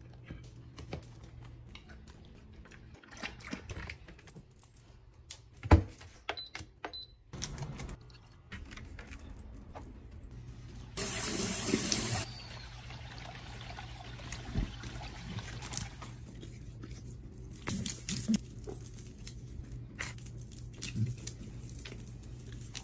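Tap water running and splashing during a dog's bath. It comes on loud for about a second near the middle, then runs softer for a few seconds, with scattered knocks and handling sounds around it.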